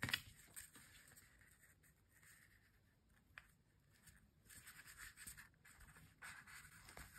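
Near silence with faint scratching and rustling: a hand-sewing needle and thread being pushed and pulled through felt.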